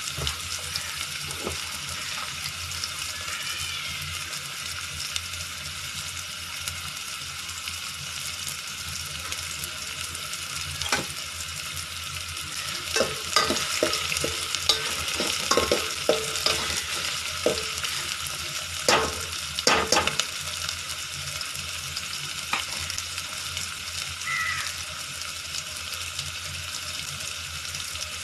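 Chopped onions with curry leaves sizzling steadily in hot oil in a metal pot, frying until they turn reddish-brown. From about halfway in, a steel spoon stirs them, scraping and knocking against the pot several times.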